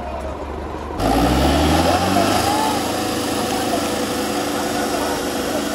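Tractor diesel engines revving up and running hard under load as two tractors chained back to back pull against each other in a tug-of-war. About a second in, the sound changes abruptly to the loud, rising engine note, with voices from the crowd over it.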